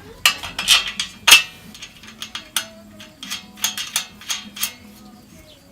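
Bird cage parts knocking and clinking together as they are handled for assembly: a quick run of sharp clatters, some with a brief ring, the loudest a little over a second in.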